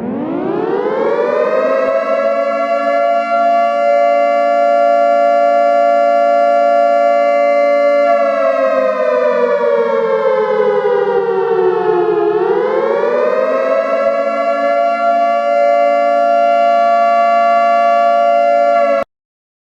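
Civil defense siren sounding an attack warning: it winds up to a steady wail of several tones, drops in pitch about eight seconds in, winds back up about four seconds later and holds, then cuts off suddenly near the end.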